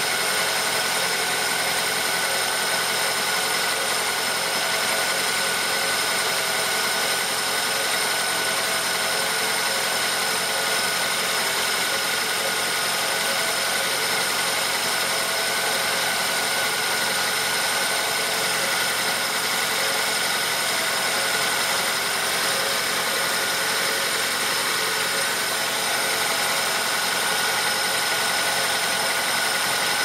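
Four-cylinder car engine idling steadily with the air conditioning running, with several steady high tones over the engine noise.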